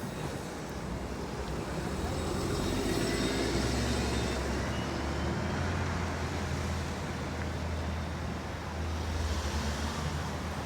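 Steady low rumble of a moving vehicle mixed with wind noise on the microphone, swelling louder a couple of seconds in and easing off again.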